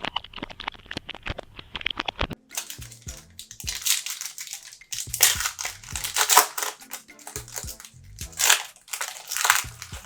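Plastic trading-card pack wrappers crinkling and being torn open. A quick run of fine crackles comes first, then several louder rustling tears.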